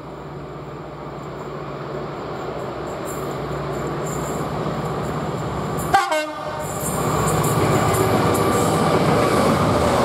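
Class 66 diesel-electric locomotive, with its two-stroke EMD V12 engine, approaching under heavy power and growing steadily louder. About six seconds in, a sudden short blast of its two-tone horn is heard, and the engine then passes close and loud.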